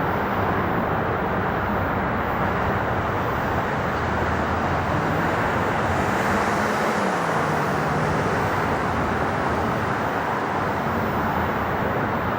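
Etihad Boeing 777 jet airliner flying low on its approach, a steady roar with an engine tone that drops in pitch about seven seconds in as it passes.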